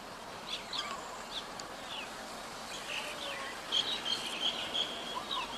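Birds chirping and calling: scattered short rising and falling chirps, with a longer held call about four seconds in, over a faint steady hiss of outdoor ambience.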